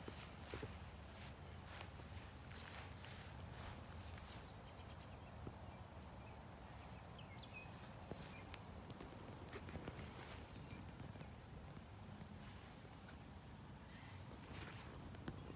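A cricket chirping in a steady, high, rapidly pulsing tone, with scattered soft clicks and rustles close by.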